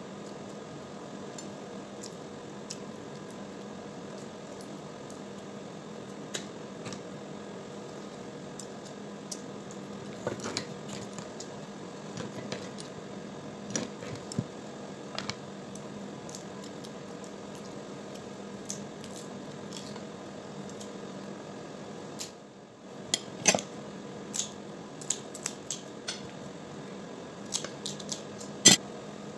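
Crab shells cracking and snapping under the fingers, with wet squishing as the meat is picked out and kitchen shears snipping through a crab leg near the end, over a steady low hum. The snaps come scattered and grow more frequent in the second half.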